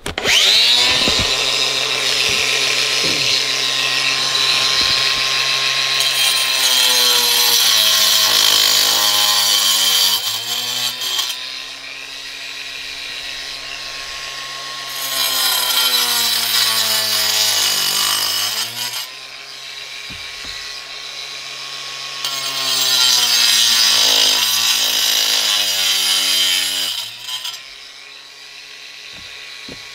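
Makita 18 V cordless angle grinder with a diamond blade cutting a brick in three passes. Its motor whine sags under load as the blade grinds into the brick and runs lighter between passes, then winds down near the end.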